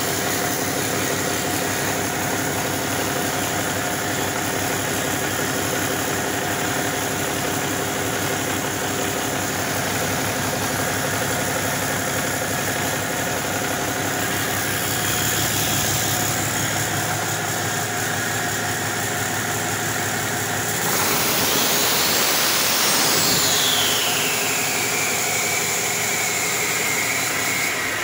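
2011 Cummins ISX12 inline-six diesel engine idling steadily. About three-quarters of the way in it is revved, and a turbocharger whine rises steeply, then falls away slowly as it spools down.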